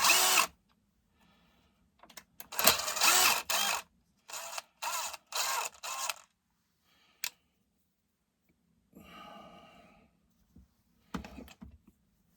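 Tool work on a chainsaw while a small felling dog (bumper spike) is fitted: a longer burst of mechanical noise, then four short bursts in quick succession, and later a few sharp clicks.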